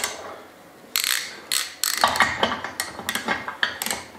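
Ratcheting torque wrench clicking in quick runs of strokes as the oil pan's drain plug is tightened into a freshly fitted Helicoil thread insert. The clicking starts about a second in and comes in several short bursts.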